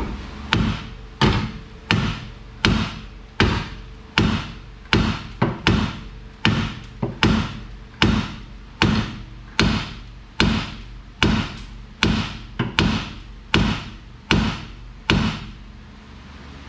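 Ball-peen hammer striking a seized rear strut again and again to drive it down out of the rear knuckle. It is a steady run of about twenty sharp metal blows, a little more than one a second, each ringing briefly.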